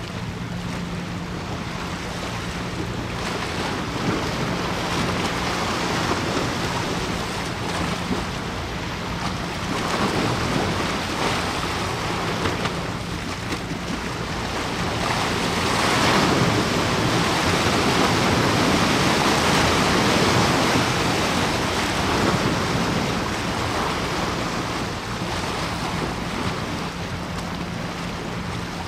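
Wind rushing over the microphone and water washing, with a steady low hum underneath; the rushing swells louder about halfway through and eases again near the end.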